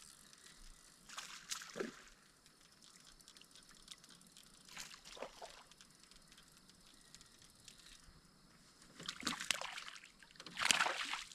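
Faint water sloshing and splashing in a few short bursts, the loudest near the end.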